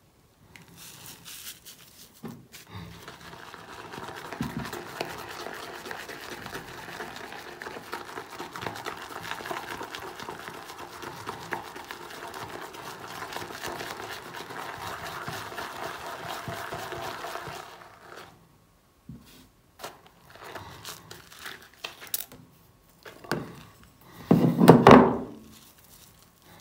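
Shaving brush swirled and whipped through Taylor of Old Bond Street shaving cream in a lathering bowl: a steady crackling swish of the thick lather. It stops about two-thirds of the way through, and is followed by a few scattered taps and a louder thump near the end.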